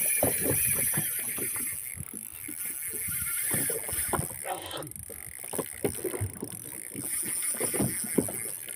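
Irregular knocks and splashes on a small fishing boat at sea, over a steady hiss of wind and water.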